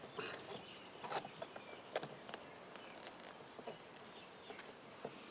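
Faint, scattered clicks and snips of hand cutters scoring and nicking the polymer coating around a fence rail's galvanised wire.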